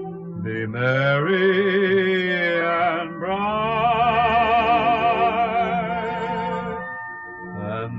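Background music: a singer holds two long notes with vibrato over instrumental accompaniment.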